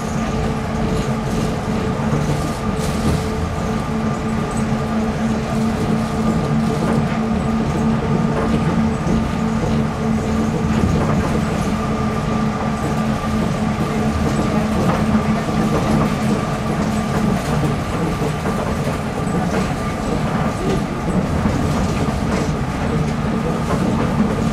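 Running noise of a Nippori-Toneri Liner 300-series rubber-tyred automated guideway train cruising between stations, heard from inside the car: a steady rumble with a few steady drive tones over it. The lowest tone drops out about two-thirds of the way through.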